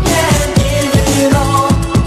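Freestyle dance track playing, with a fast steady electronic beat and synth melody.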